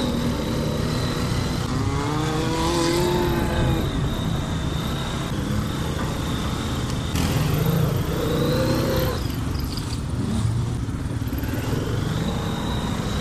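Quad bike (ATV) engine running and revving as it drives across a grassy field, the pitch rising and falling about two seconds in and again about eight seconds in, over a steady engine drone.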